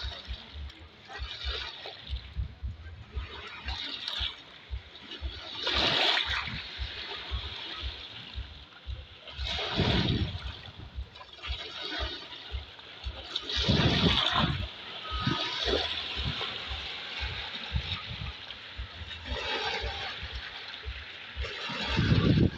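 Small lake waves washing in and splashing over rocks, one surge every few seconds, each swelling and draining away.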